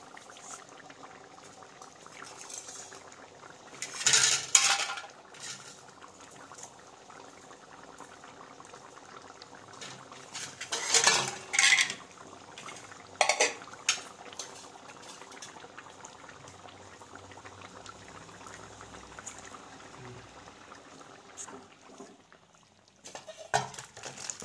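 Curry boiling in an aluminium pot, with a metal utensil clattering and scraping against the pot in short bouts, about four, eleven and thirteen seconds in. Near the end metal clatters again as the curry is poured from the pot into a steel bowl.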